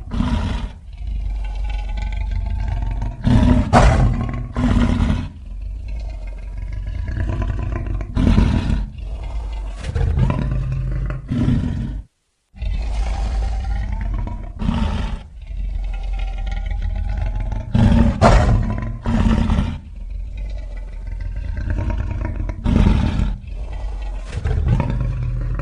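Animal-like creature roar sound effect: wavering pitched growls broken by several short, loud roars. The sequence of about twelve seconds cuts off for a moment and then plays again.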